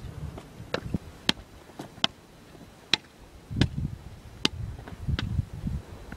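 Beach paddles hitting a tennis ball back and forth in a rally: a sharp knock about every three-quarters of a second, a few softer than others.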